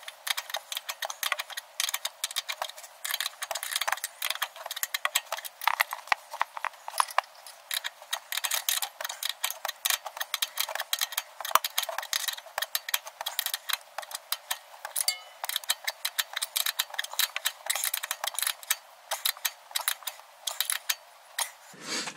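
Ratcheting spanner clicking in rapid, uneven runs as it tightens the top nut of a front shock absorber; the clicking stops near the end.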